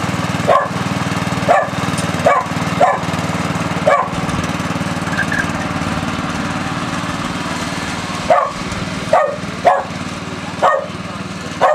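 A dog barking repeatedly, five barks in the first four seconds, then a pause, then four more, over the steady hum of a ride-on lawn mower's engine.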